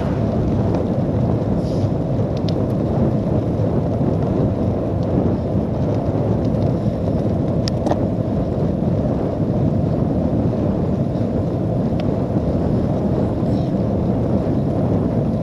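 Wind buffeting a bike-mounted camera's microphone while the cyclocross bike rolls at about 20 mph on a wet road: a steady, loud low rumble with a few faint ticks.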